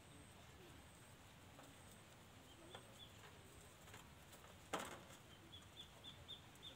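Faint sounds of puppies at a shallow metal pan of water: soft lapping and small taps of paws on the metal. One sharper knock comes about five seconds in.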